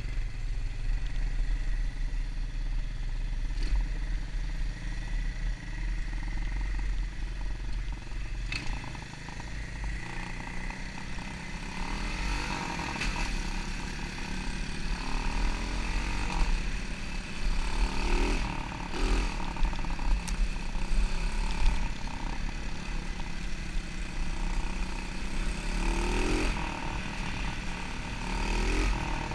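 Dirt bike engine running as it rides a dirt trail close behind an ATV, whose engine can also be heard ahead. The revs rise and fall several times as the rider throttles up.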